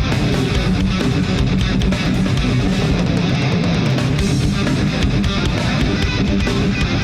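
Live progressive metal played by a full band through a front-of-house mix: distorted electric guitars, bass and drums with rapid hits, with no singing.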